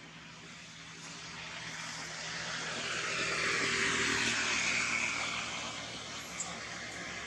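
A passing engine's rushing noise swells to its loudest around the middle, then eases off a little.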